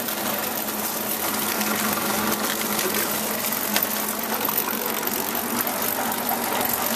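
Motorized sugarcane roller press running steadily while it crushes cane stalks, a constant machine hum with scattered small crackles.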